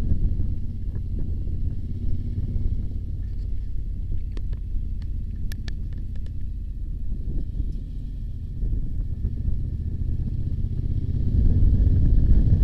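Low, steady wind rumble buffeting the microphone of a moving two-wheeler, with a few faint clicks about halfway through; the rumble grows louder near the end.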